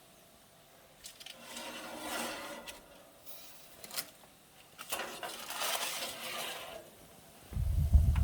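Metal pans and baking trays scraping and rattling as they are shifted about, in two spells, with a sharp click about four seconds in. A loud low rumble starts near the end.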